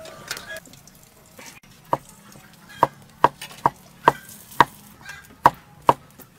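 A kitchen knife chopping bamboo shoots on a thick wooden chopping board: sharp separate knocks, about two a second, starting about two seconds in.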